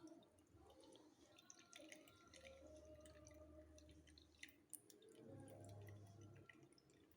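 Blended aloe vera juice dripping faintly through a strainer: scattered small drips and clicks.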